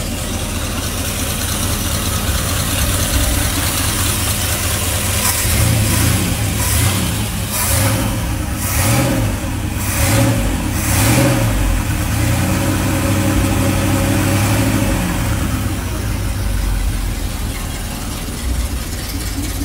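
Old Chevy wrecker's gasoline V8 running through a newly fitted single exhaust. It is blipped several times from about five to eleven seconds in, then settles back to idle. The owner calls its carburetor not the greatest and still to be adjusted, along with the timing.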